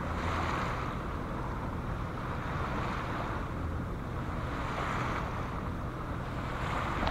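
A sailboat's engine running steadily while under way, with wind rumbling on the microphone and water swishing along the hull; the hiss swells and fades a few times.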